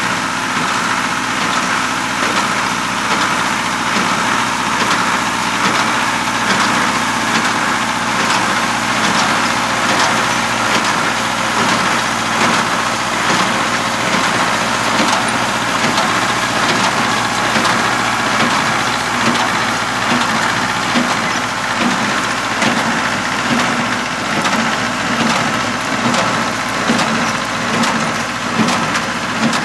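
Tractor engine running steadily while it drives a small square baler pressing straw, with the baler's repeated mechanical knocks over the engine hum.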